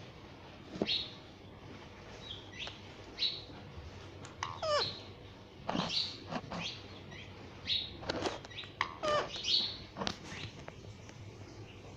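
A pet parrot making short, scattered chirps and squeaky calls, a dozen or so, one of them sliding down in pitch about halfway through.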